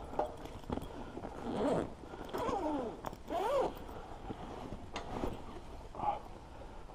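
Feral pigeons cooing, three rising-and-falling calls a second or two in, among scattered light clicks and rustles.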